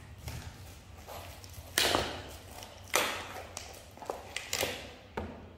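Handling of a shrink-wrapped pack of small milk cartons on a cardboard case: plastic wrap crinkling and crackling as it is pulled open, with a few sharp taps, the two loudest about two and three seconds in.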